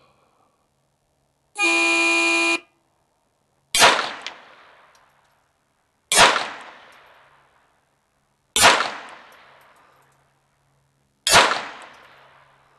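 A range start signal sounds as a steady one-second tone, then a semi-automatic pistol fires four single shots about two and a half seconds apart, each trailing off in a short echo: the pace of a bullseye timed-fire string.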